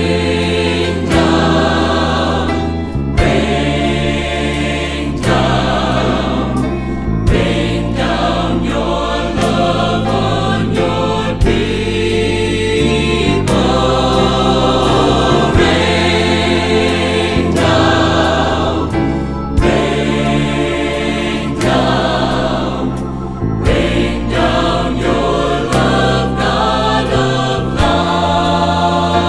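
Choir singing a hymn with instrumental accompaniment: sustained bass notes and a regular beat under the voices.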